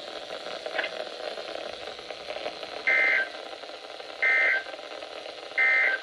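NOAA Weather Radio through a weather-alert radio's speaker: three short buzzy data bursts about 1.3 s apart, the SAME end-of-message code that closes the test alert. A steady static hiss runs beneath them.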